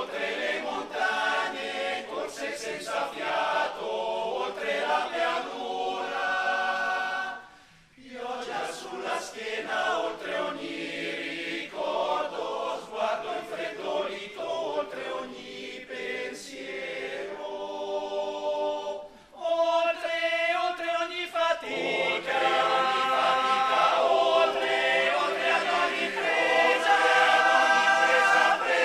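Male choir singing a cappella in close harmony, pausing briefly twice and growing louder in the later part.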